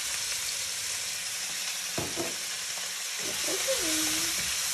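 Frozen mixed vegetables sizzling in a very hot wok in peanut oil with a splash of soy sauce, stirred with a wooden spatula; a single knock about two seconds in.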